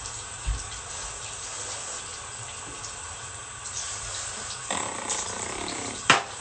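Aerosol spray deodorant hissing for about a second and a half near the end, followed by a sharp click. Underneath is the steady hiss of running water.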